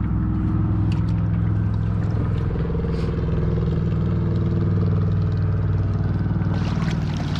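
Boat engine running at a steady speed, a low even hum.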